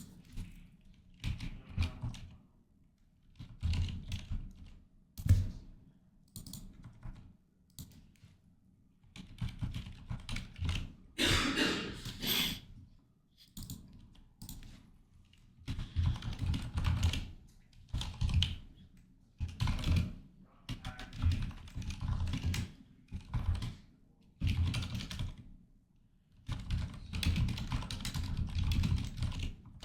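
Typing on a computer keyboard in irregular bursts of keystrokes with short pauses between them, with one brief louder rustling noise about a third of the way through.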